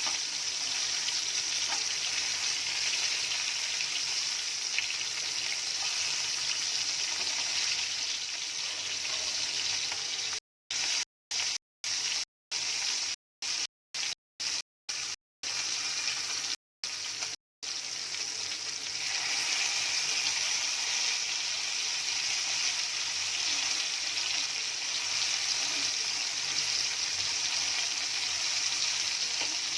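Sankara fish pieces frying in shallow oil in a nonstick pan, a steady sizzle. The sound cuts out abruptly several times about a third of the way in, then the sizzle resumes.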